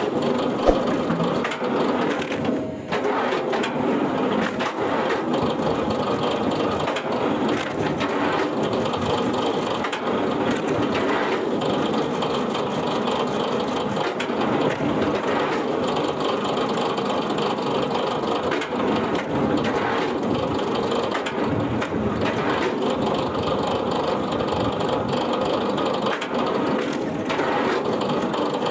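Wood-processing machinery running and crushing wood, a dense continuous crackling and grinding with a brief break about three seconds in.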